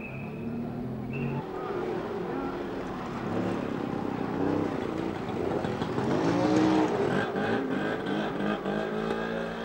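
Busy town-street traffic: car engines running and passing, mixed with the voices of people in the street. A short high steady tone sounds right at the start.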